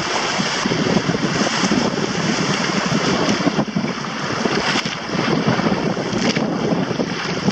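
Strong wind buffeting the microphone over the steady rush and slap of choppy water against the hull of a Hobie sailing trimaran moving fast in heavy wind.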